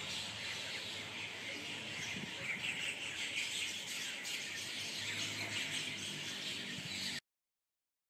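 Bank mynas calling, a dense continuous chatter of overlapping calls that cuts off abruptly about seven seconds in.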